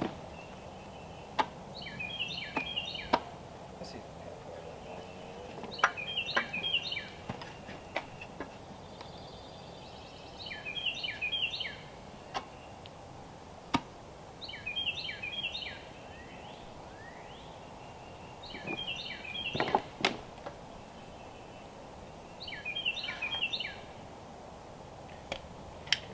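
A songbird singing a short phrase of quick repeated notes about every four seconds, with scattered sharp knocks in between that are the loudest sounds.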